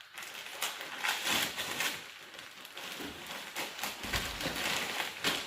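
Gift wrapping paper being torn and crinkled as a present is unwrapped, an irregular crackling rustle, with a soft low thump about four seconds in.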